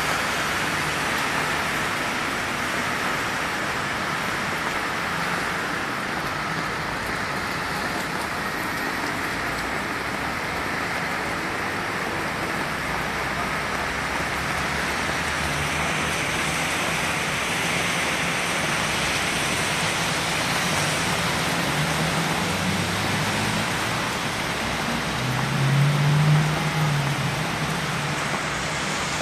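Heavy rain pouring onto a flooded street and a patio umbrella, a steady hiss of falling and splashing water. A low rumble swells briefly near the end.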